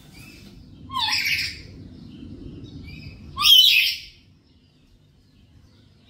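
Black-capped lory giving two loud, harsh calls about two and a half seconds apart, each opening with a short rising note; the second is the louder. A low background rumble stops at about the second call.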